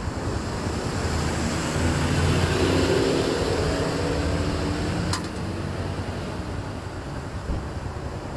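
A light lorry driving past on the road. Its engine grows louder to a peak two to three seconds in, then fades with its drone dropping in pitch. There is a sharp click about five seconds in.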